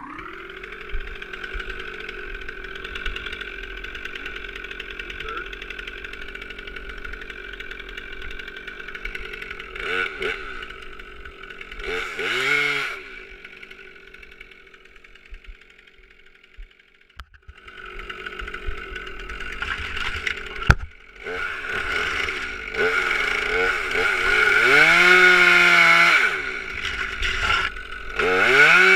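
Stihl 362 R C-M two-stroke chainsaw revving up and running at high revs, with the throttle easing off briefly a few times. About halfway through it falls to a lower, quieter note for a few seconds, then comes straight back up to full revs. A single sharp click sounds about two-thirds of the way in.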